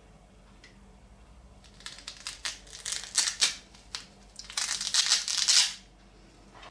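Crinkling and rustling of wrapping being handled: a run of irregular crackles from about two seconds in, then a louder, denser stretch near the end.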